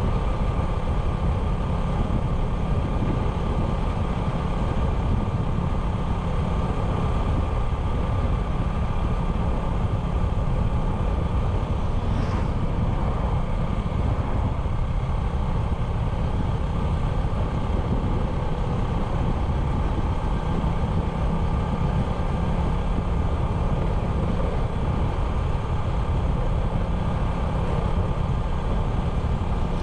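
A 97cc motorbike running at a steady speed, its small engine holding one even hum over a dense low rumble of riding noise.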